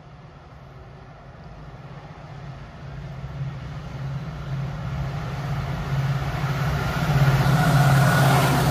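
Locomotive-hauled express train approaching at speed: a steady low hum from the locomotive grows louder throughout, then a rush of noise builds to its loudest as the locomotive reaches the platform near the end.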